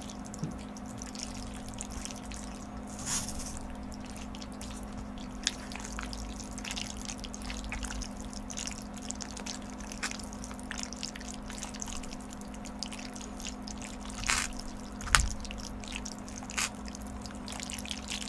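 Close-miked eating sounds: jjajang noodles slurped and chewed, with many short wet mouth noises and a few sharp clicks, the loudest about 15 seconds in. A steady low hum runs underneath.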